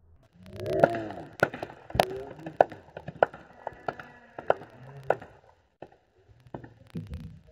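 Volleyball being struck by players' hands and arms during a rally: a string of sharp slaps, several a second at times, the loudest about two seconds in. Players shout about a second in.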